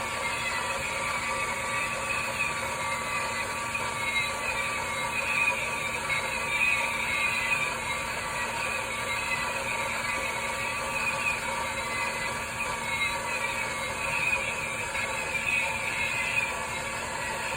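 Toy fireworks bubble machine running, its motor humming steadily under the built-in firework sound effect: falling whistles, one after another.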